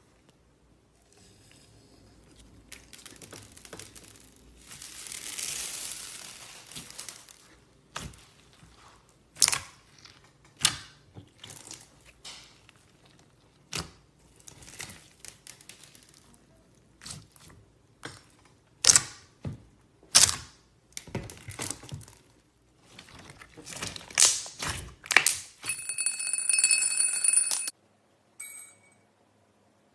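Slime being squished and poked, making sticky pops and clicks, with a soft rising and falling swell of squelching about five seconds in. Near the end a short steady high tone with several pitches sounds briefly.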